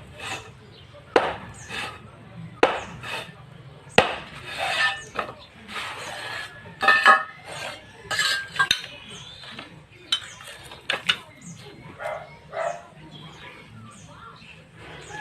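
Metal hand tool, a mason's trowel or similar, clinking and scraping against concrete hollow block and mortar in irregular sharp strikes.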